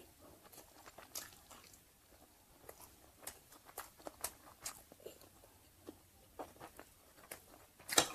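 Close-up chewing of stir-fried chicken organs and rice: a steady run of small, irregular mouth clicks and smacks. A louder clink comes near the end as the spoon and fork go back into the plate.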